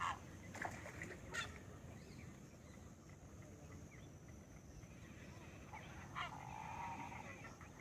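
Wetland birds calling: a few short, sharp calls in the first second and a half, then a longer, nasal, honking call about six seconds in.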